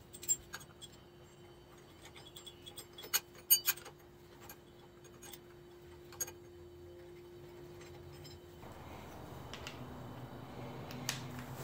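Scattered light metal clicks and clinks as a puller is fitted to a diesel engine's crankshaft pulley, with a cluster of sharp clicks a few seconds in. A faint steady hum stops about eight and a half seconds in.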